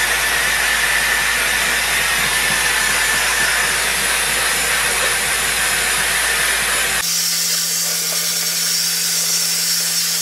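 Dyson Airwrap's pre-styling dryer attachment blowing on its highest heat and air setting: a steady rush of air with a thin high whine above it. The tone changes abruptly about seven seconds in, the deep rumble dropping away and a low hum taking its place.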